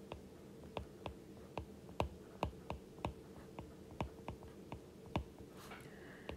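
Stylus tapping and ticking on a tablet's screen during handwriting: irregular sharp clicks, about three a second.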